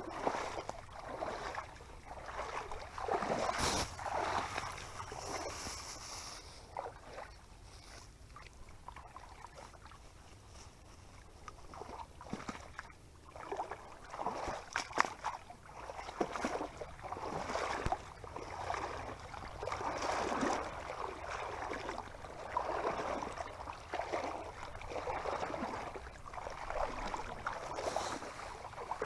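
Water sloshing and splashing in a repeated rhythm, a swell every second or two, as someone moves through flooded swamp water.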